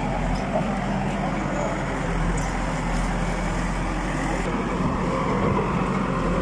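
Backhoe loader's diesel engine running steadily while its bucket digs out earth and broken asphalt from the road, with voices in the background.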